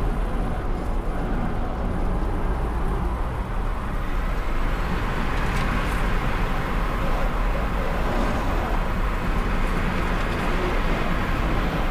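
Steady road, tyre and wind noise of an electric car lapping a race track at speed.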